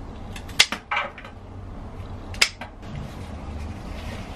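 A few sharp clinks and knocks, with a brief rustle, as flower stems and a glass vase are handled at a kitchen sink. There are three distinct knocks, the loudest about half a second in and another about two and a half seconds in.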